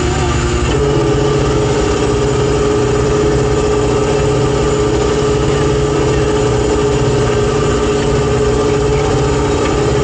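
Boat engine running steadily under a constant low rumble, with a steady whine that steps up in pitch about a second in and then holds.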